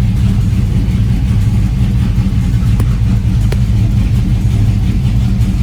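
Porsche Cayenne engine running steadily, with a low rumble and two faint ticks in the middle.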